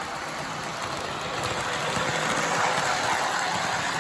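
Model electric passenger train, a New Haven locomotive with lit passenger cars, running on toy track with a steady whirring rumble of motor and wheels. It grows louder about two seconds in as the train passes close by, then eases near the end.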